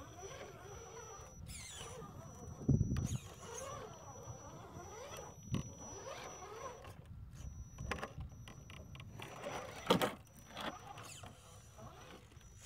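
RC scale rock crawler's small electric motor and geartrain whining, the pitch rising and falling with the throttle as it climbs rock. A heavy thump about three seconds in, and sharp knocks near the middle and again about ten seconds in.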